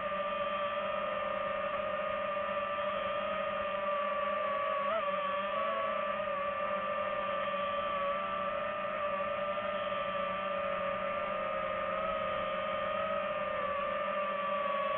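Quadcopter drone's propellers and motors whining steadily, the pitch wavering slightly, with a brief jump about five seconds in.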